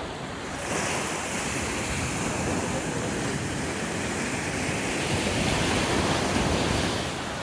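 Wind rushing over the microphone with sea waves washing, a steady noise without any distinct knocks or tones.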